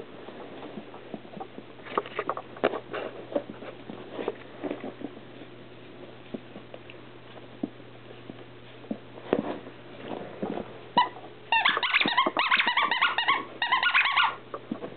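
Miniature schnauzer puppy playing with a plush toy on carpet: soft scuffling and patter of paws and toy for most of the time. Then, about three seconds before the end, a burst of rapid, high-pitched puppy yips and squeals lasting about three seconds.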